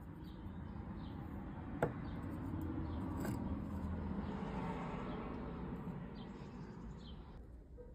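Fired terracotta cups clicking sharply twice as they are picked up and set back on a board. Behind them a rushing noise swells and fades, with a few short bird chirps.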